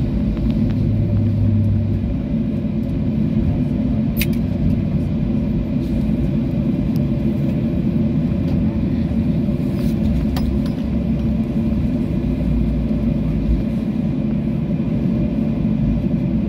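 Steady low rumble of a jet airliner heard from inside the cabin as it rolls out along the runway just after landing: engine noise and tyre rumble on the wet tarmac, with a couple of faint ticks.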